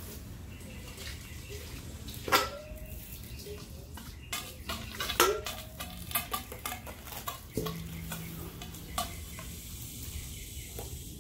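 Stainless steel bowl clanking while vegetables are rinsed with a garden hose: two louder knocks with a short metallic ring, about two and five seconds in, and many lighter clicks and taps between, over a low background of running water.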